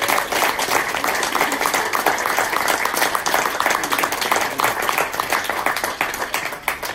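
A roomful of people clapping: a dense, steady round of applause that fades out near the end.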